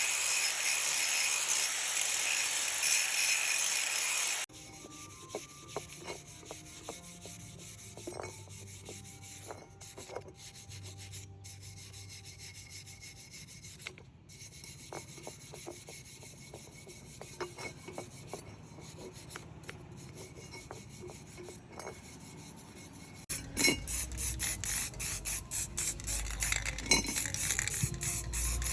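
Rubbing and rasping of hand work on a part. A loud steady hiss stops after about four seconds. Then come quiet scattered clicks and taps, and near the end fast, rhythmic rasping strokes.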